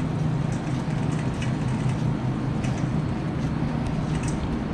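Wire shopping cart rolling across a concrete store floor: a steady low rumble from the wheels, with a few faint rattles and ticks from the basket, over a steady low hum.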